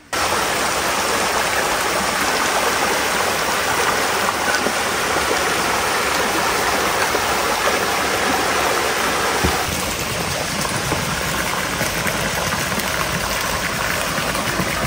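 River water flowing, a steady rushing sound that eases a little about ten seconds in.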